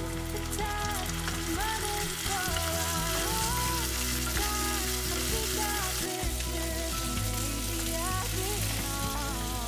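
Sliced onions and whole spices sizzling in hot oil in a frying pan, just after a splash of water has been added to keep them from scorching while they are stirred; the sizzle grows louder about two seconds in. Instrumental background music plays along.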